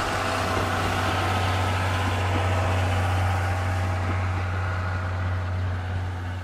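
Passenger train running past on the line, a steady low engine drone with rushing running noise. The running noise thins out toward the end as the train draws away.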